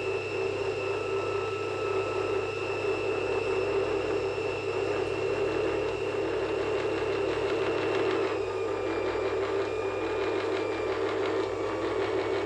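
Steady mechanical whirring drone made of several held tones, which shifts slightly in pitch about eight seconds in.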